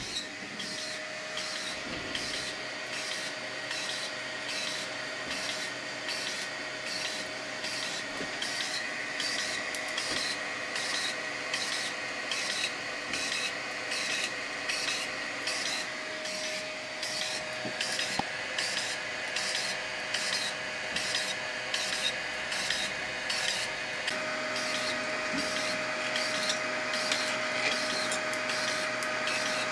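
Bondtech BMG extruder's stepper motor whining steadily while it rapidly retracts and pushes filament back and forth in a retraction torture test, with a regular pulsing about one and a half times a second. Its whine changes pitch a couple of times partway through.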